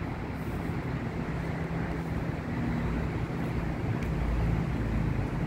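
Steady low outdoor rumble of wind on the microphone and street traffic, swelling a little about four seconds in.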